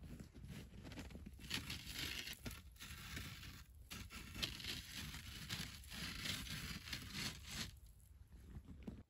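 Rustling and crunching of a person moving and sitting down on a floor of dry reeds in winter clothing, in uneven bursts that die down near the end.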